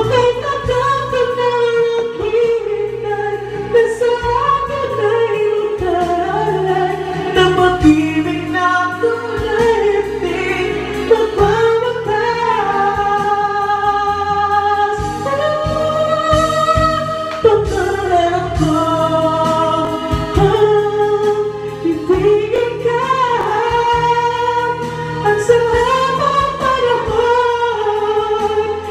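A man sings a Tagalog love ballad into a karaoke microphone over a karaoke backing track, holding long notes with vibrato.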